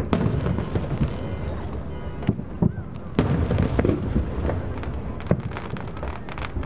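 Aerial fireworks bursting in quick succession: a string of sharp bangs over a continuous low rumble, with crackling between the louder reports.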